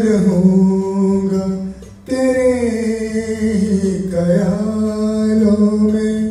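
A man singing into a microphone: long held, wavering vowel notes without words, in two phrases broken by a brief pause about two seconds in.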